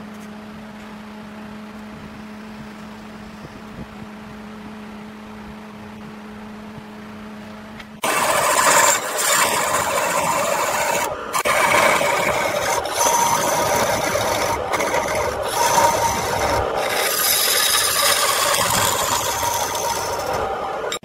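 Wood lathe motor humming steadily while the work spins. About eight seconds in, a hand-held turning chisel bites into the spinning wood and a loud scraping cut carries on, broken by a few brief gaps where the tool lifts off.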